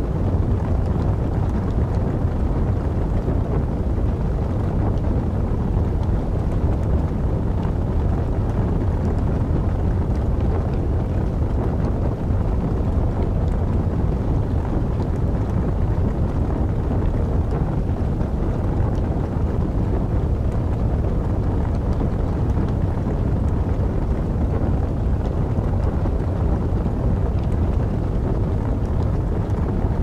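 Steady low wind noise, like a winter storm, under the faint crackle of burning wood logs.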